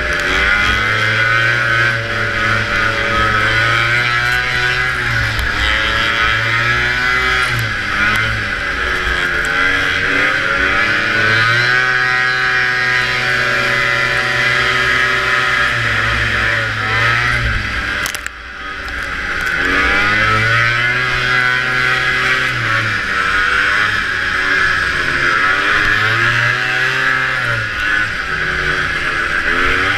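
Antique two-stroke racing snowmobile engine at full race pace, its pitch climbing under throttle and falling as it eases off, over and over. About two-thirds of the way through the throttle is cut sharply and the engine then revs back up.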